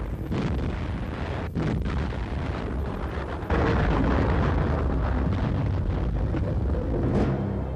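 Heavy artillery battery firing a salvo: several sharp blasts in quick succession over a continuous deep rumble, the loudest about three and a half seconds in.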